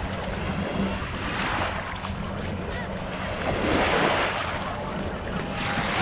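Small sea waves washing up onto a sandy shore, each wash swelling and fading about every two seconds, over a low steady hum.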